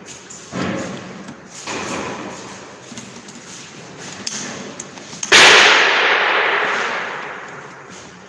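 Short knocks and rustling as wires and plastic socket modules are pushed into a floor socket box. About five seconds in there is a loud sudden crash that fades away over about two seconds.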